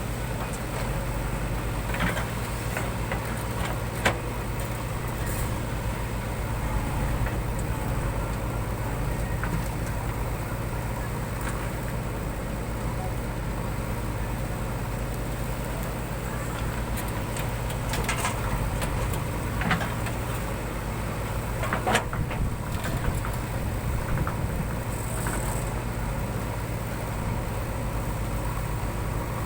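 JCB 3DX backhoe loader's diesel engine running steadily with a low drone, with a few short sharp knocks and clanks now and then.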